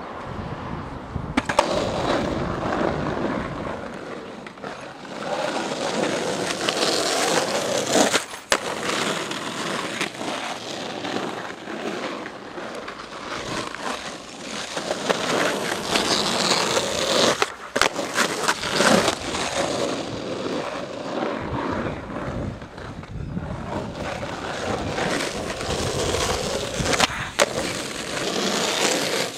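Skateboard wheels rolling on rough asphalt, with several sharp clacks of the board striking the pavement.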